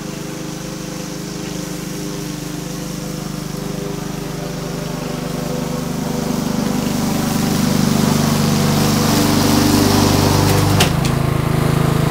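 Walk-behind gas lawn mower engine running steadily while mowing, growing louder as it comes close. A sharp click near the end, with the engine note dipping slightly.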